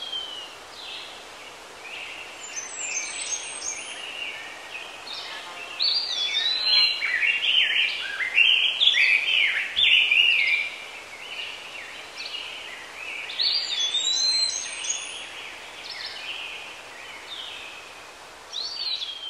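Several birds chirping and singing: many quick whistled chirps and sliding notes, busiest and loudest in the middle, over a faint steady hiss.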